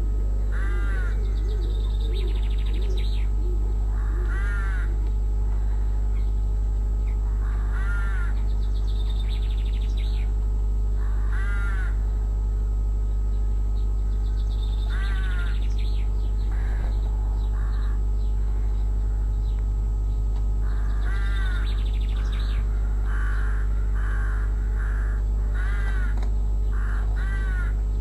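Crows cawing in the background, one harsh call every three or four seconds, then a quicker run of calls near the end, over a steady low electrical hum.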